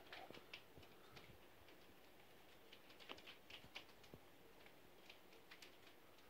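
Hailstones falling, heard as a faint, irregular patter of small sharp ticks as they strike.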